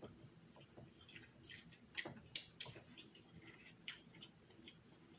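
A person chewing a mouthful of crab meat: soft wet smacks and mouth clicks, a few louder ones about two seconds in.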